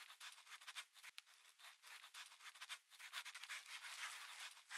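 Faint pencil scratching on paper, a quick irregular run of short sketching strokes.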